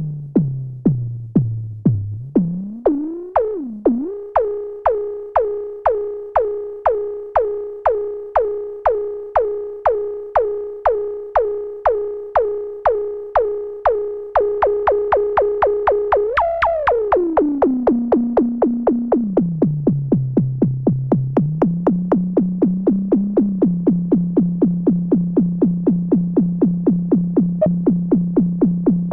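Behringer Neutron analog synthesizer repeating a short plucked note with a sharp attack and quick decay. The pitch glides slowly: it falls, then rises over the first few seconds, holds, and sweeps up and back down past the middle. The notes come faster from about halfway through.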